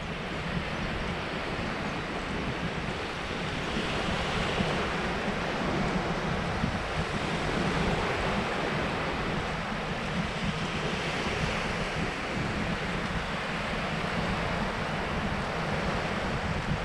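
Small waves breaking and washing up a flat sandy beach, the surf swelling and easing off twice, with wind buffeting the microphone as a low rumble underneath.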